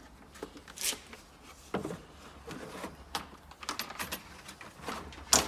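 Hard plastic tool case being opened and a Parkside sabre saw handled inside it: scattered clicks and knocks of latches, lid and plastic, a cluster of them after about three and a half seconds and the sharpest knock near the end.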